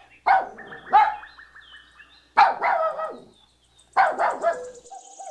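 Puppy barking: four short, high-pitched yaps with pauses between them.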